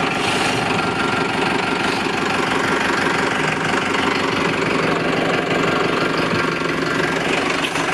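Powertrac tractor's diesel engine running steadily at idle.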